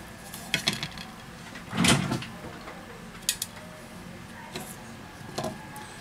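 Light clicks and knocks of a Huawei Mate 9 smartphone and its back cover being handled on a work mat. The loudest knock comes about two seconds in and a sharp click a little after three.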